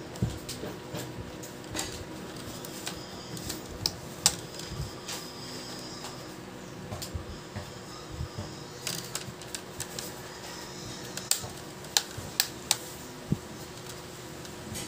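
Plastic screen bezel of a Lenovo IdeaPad laptop lid being pressed along its edges, giving irregular clicks and snaps of its clips, with a few sharper snaps near the end.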